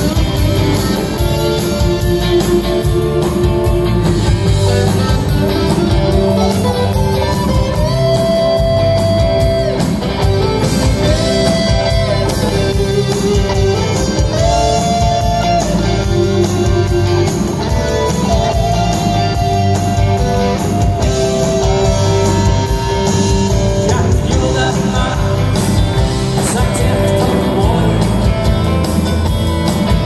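Live rock band playing an instrumental break over steady drums and bass. The lead electric guitar solo slides up into long bent notes several times.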